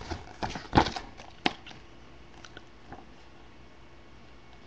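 Desk handling noise: a quick run of sharp clicks and knocks, the loudest a little under a second in, then a few faint ticks.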